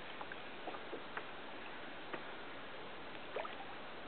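Water lapping and trickling against a kayak hull on a gentle sea, with a few faint scattered ticks.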